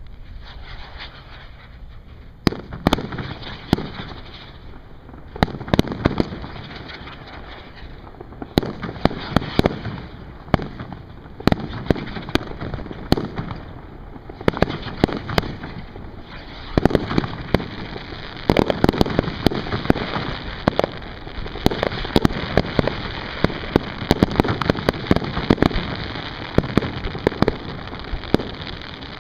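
Aerial fireworks shells bursting in a barrage of sharp bangs and crackles, sparse at first and coming thick and near-continuous from about halfway through.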